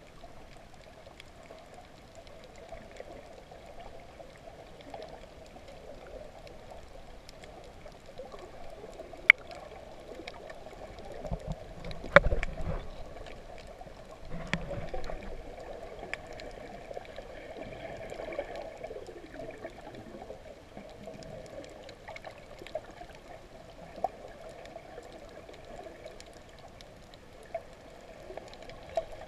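Underwater ambience picked up by a submerged camera while snorkeling: a steady, muffled rush of water with scattered sharp clicks. A sharp click comes about nine seconds in and a heavy thump with swirling water about twelve seconds in.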